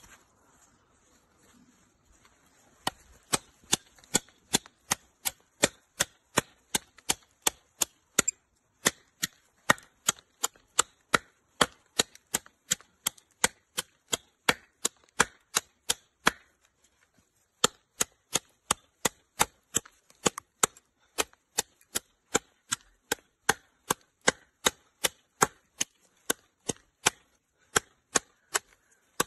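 Large saw-backed survival knife (Daniele Mauro's First Blood) chopping into a green branch: quick, even blade strikes on the wood, about two to three a second. The strikes begin a few seconds in, with a brief pause past the middle.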